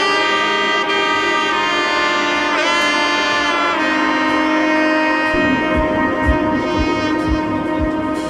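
Background music: a held melody line with several pitch bends, joined about five seconds in by a low, steady drum beat.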